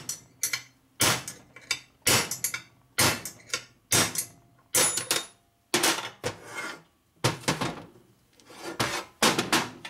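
Hammer blows on a punch, driving the old bearing race out of a Harley-Davidson Sportster Ironhead crankcase. The strikes come about once a second, some in quick pairs, each with a short ring.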